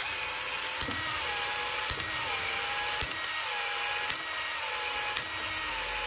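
Powered PEX-A expansion tool running steadily, with a click about once a second as its head expands and turns, stretching the end of half-inch PEX-A pipe to take a coupling.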